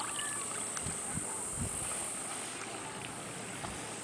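Steady outdoor hiss of wind and calm seawater, with a few soft low knocks in the first two seconds.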